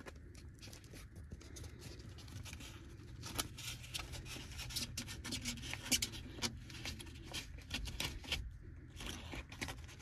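Hands pressing and pulling at black foam pipe insulation and sticky sealing compound around a copper refrigerant line: a long run of dry crackling and scratching over a steady low hum.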